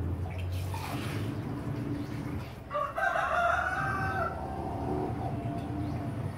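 A rooster crowing once, a long call starting about three seconds in, over a low steady hum.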